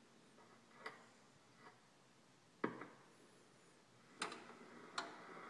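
A few sharp clicks and knocks at uneven intervals against near silence, the loudest about two and a half seconds in.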